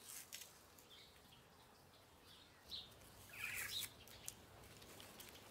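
Near silence with a few faint, short bird chirps in the background.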